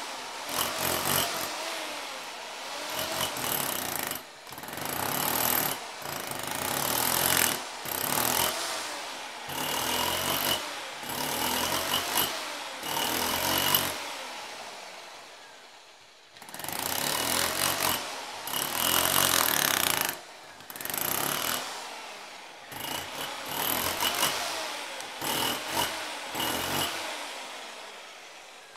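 DeWalt hammer drill hammering into a concrete floor to break it up, run in bursts of one to a few seconds with short pauses between, and a longer pause about halfway through. Close up in a small room.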